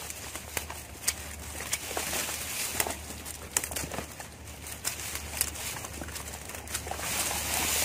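Dry grass stems rustling and crackling with irregular sharp snaps as gloved hands push through and part a clump of dry grass. The rustling grows louder near the end.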